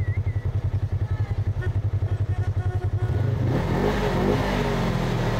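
Old pickup truck's engine idling with a fast, even throb, then revving up about three seconds in as the truck pulls away, with tyres crunching on gravel.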